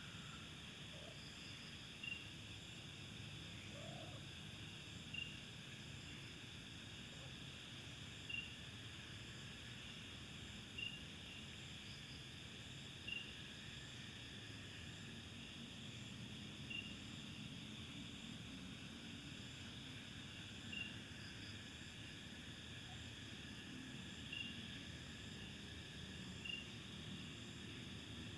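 Night insect chorus of crickets, a faint steady high buzz, with a short high chirp that repeats about every two to four seconds.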